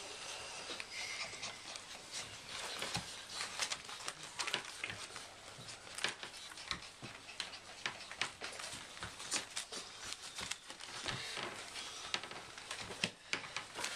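Five-week-old English Bull Terrier puppies scrambling about and climbing over a lap. There are many small clicks and scratches from their claws and bodies.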